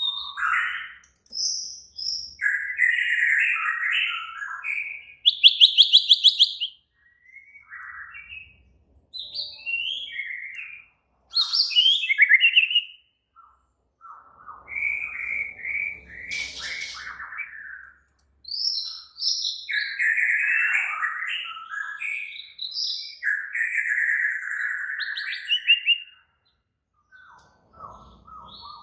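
White-rumped shama (murai batu) singing in an agitated, aggressive mood: varied whistled and chattering phrases broken by short pauses, with a fast rattling trill about five seconds in.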